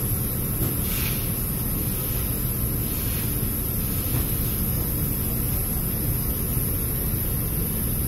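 Steady low rumble of a busy repair-shop background with a constant high hiss, broken only by a couple of faint knocks about one and three seconds in.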